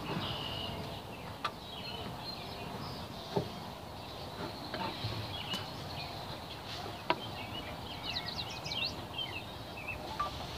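Steady outdoor background noise with a few sharp clicks, and a quick run of small bird chirps about eight seconds in.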